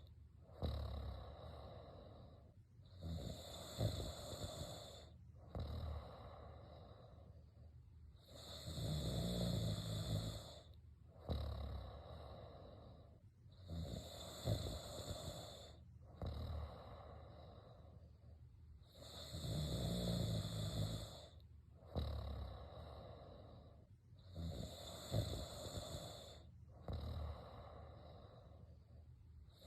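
A person snoring in a slow, even rhythm, with a louder snore about every five and a half seconds and quieter breathing between them.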